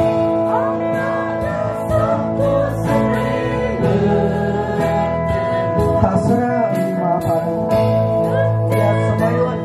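Live praise and worship band: voices singing a hymn over strummed acoustic guitar and electric bass, amplified through a PA.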